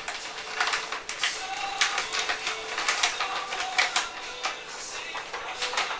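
Plastic bag of sugar crinkling and rustling in irregular crackles as the sugar is tipped from it into a bucket of wort.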